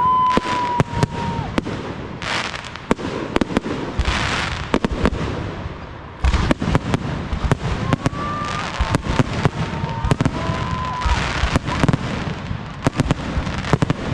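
Aerial fireworks display: a rapid run of bangs and crackles from bursting shells over a steady hiss of rising comets, with a few whistling tones, the first rising in right at the start.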